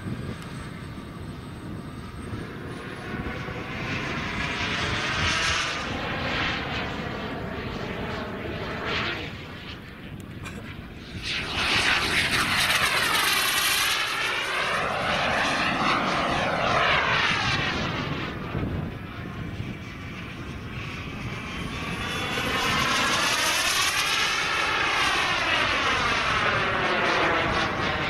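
Wren 160K Pro turbine of a large radio-controlled model jet in flight, a steady rush that swells and fades as the jet makes passes. It is loudest from about the middle to two-thirds of the way through, and again near the end.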